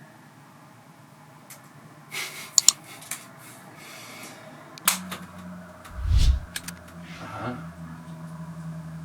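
A few clicks and handling rustles, then about five seconds in a steady low droning hum from a generator sets in and keeps going, with one heavy low thump a second after it starts.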